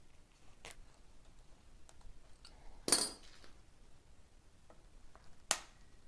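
Nylon zip ties being ratcheted tight around a bicycle frame: a few light clicks, then one loud zipping rasp of the tie pulled through its catch about halfway. Near the end comes one sharp snap of wire cutters clipping off the tail.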